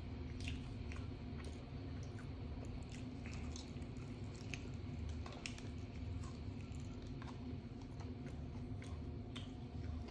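Close-up sounds of someone chewing and biting fried chicken: wet, squishy mouth sounds with irregular small clicks and smacks, over a steady low hum.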